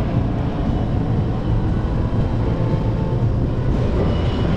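A boat's engine running steadily under way, a continuous low drone with a hum around 100 Hz.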